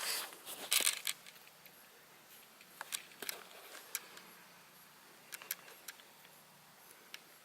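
Handling noise, then scattered sharp light clicks as the Dodge Challenger Hellcat's centre console trim is pulled up by hand, its plastic retaining clips popping loose.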